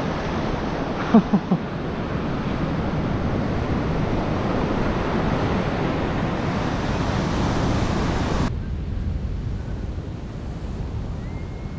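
Surf breaking and washing up on a sandy beach, with wind buffeting the microphone. About a second in come three short, low sounds. About two-thirds of the way through, the sound drops suddenly to a quieter, duller wash of surf.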